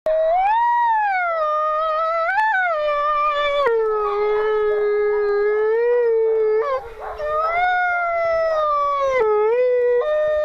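A female wolf howling at close range: a long howl that rises, falls and settles on a lower held note, a short breath about seven seconds in, then a second howl that slides down and steps back up near the end.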